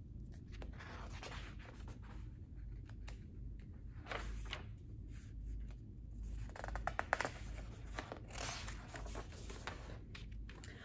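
Paper rustling as a large picture book is handled and opened, its cover and pages scraping and flapping, with a few light clicks and taps a little past the middle.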